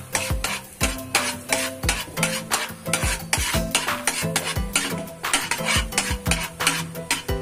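Metal spatula scraping and stirring in a steel wok with quick repeated strokes, several a second. Melted butter sizzles and foams underneath.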